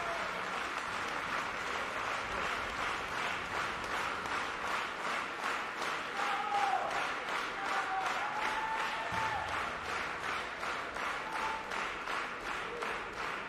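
Audience applauding; the clapping falls into a steady rhythm of about three claps a second. A few short calls rise above it in the middle.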